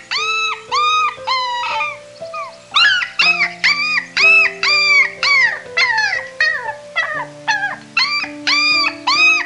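Puppies whining and yelping in a rapid series of short, high-pitched, arching cries, about two a second, over background music with slow held notes.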